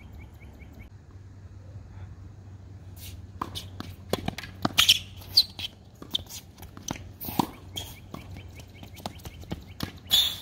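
Tennis rally on a hard court: racket strikes, ball bounces and shoe scuffs come as a string of sharp knocks. The loudest is a hit about ten seconds in.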